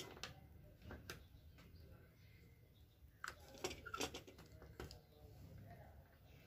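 Faint handling noise: a few short clicks and taps as small electrical parts and multimeter test leads are picked up and set down on a workbench, with a cluster of them between about three and five seconds in, over a low steady hum.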